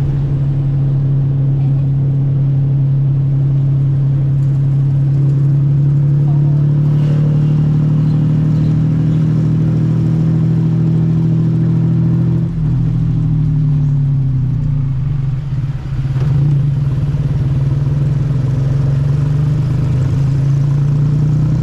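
Small engine running steadily under way, its pitch dipping and wavering about halfway through, then settling again.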